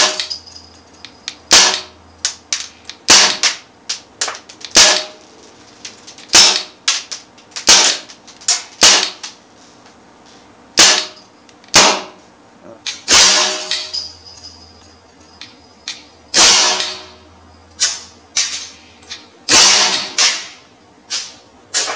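Crosman AK1 CO2 BB rifle firing single shots on semi-auto with blowback: a string of sharp pops at uneven gaps of about a second, many followed by a quick click of the bolt cycling.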